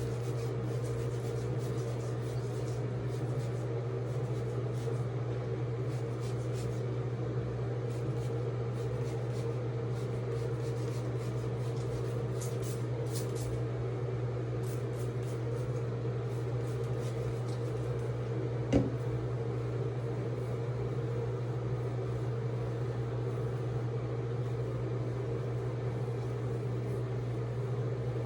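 A steady low machine hum, with faint short high ticks and crackles scattered through it and a single sharp knock about nineteen seconds in.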